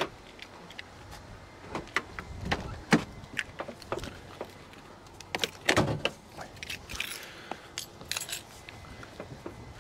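A bunch of keys jingling in the hand, with scattered sharp clicks and knocks of handling.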